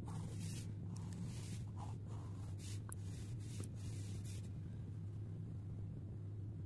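Fine-tipped ink pen scratching on paper in a run of short strokes, which thin out after about four and a half seconds, over a steady low hum.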